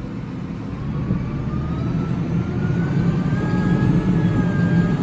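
Massey Ferguson 5711 tractor's diesel engine running, with a whine that rises in pitch over the first few seconds as the revs come up, then holds steady at the higher speed.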